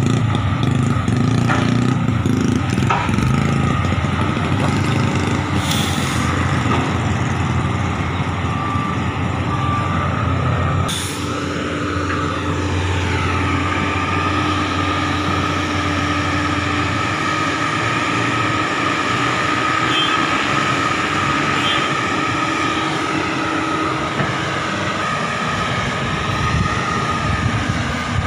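Diesel engines running under load: a deep engine rumble at first, then, after a sudden change about eleven seconds in, a JCB tracked excavator digging mud, its engine running steadily with a high whine over it.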